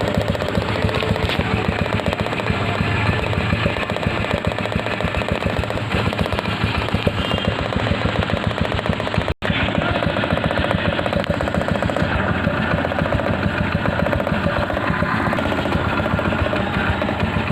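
Motorbike engine running with its exhaust piped into a water-filled plastic drink bottle tied to the silencer, the exhaust gas bubbling through the water to make a fast, continuous rattling pop like a machine gun. The sound drops out for an instant about halfway through.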